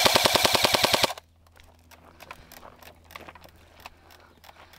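Airsoft gun firing one full-auto burst of just over a second, about fifteen rapid shots a second, followed by scattered fainter clicks.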